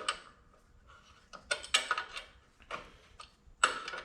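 Metal hand tools and parts clinking and clattering in short knocks while bolts on a band saw are being tightened, quiet for about the first second, then a run of knocks, the loudest near the end.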